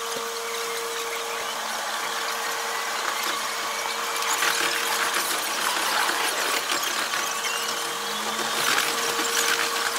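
Running noise inside a JR West 221 series electric train pulling away, sped up eight times. It is a steady hiss with faint rising whines and no low rumble.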